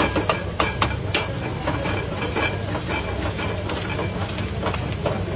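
Metal spatula clinking and scraping in a hot black wok while an egg mixture fries and sizzles. Several sharp clinks come in the first second or so and one more near the end, over a steady low hum.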